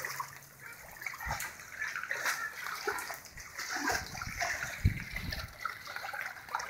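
Floodwater sloshing and splashing irregularly as someone wades through it, with a few dull low thumps about four to five seconds in.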